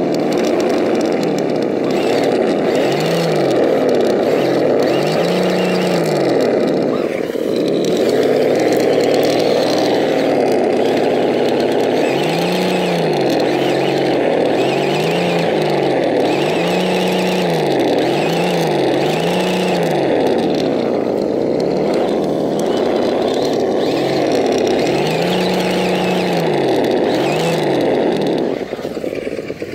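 Vaterra Ascender RC rock crawler's electric motor and geared drivetrain whining under load as it claws up a loose dirt bank. The pitch rises and falls over and over as the throttle is pushed and eased.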